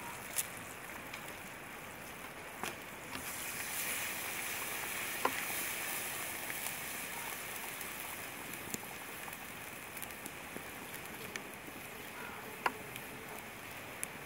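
Wood fire crackling under a cooking pot, with a handful of sharp single pops over a steady hiss that swells for a few seconds after about three seconds in.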